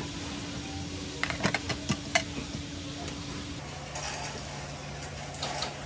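Steel tongs clicking and clinking against a wire rack and metal tray as grilled patties are set down: a quick run of sharp taps over about a second, one ringing briefly. A steady hum runs underneath.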